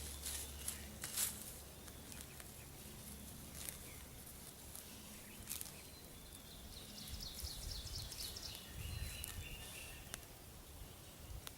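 Rustling and scraping of wild carrot (Queen Anne's lace) being dug out of the ground by hand, with scattered clicks. About halfway through, a bird sings a quick run of high chirps.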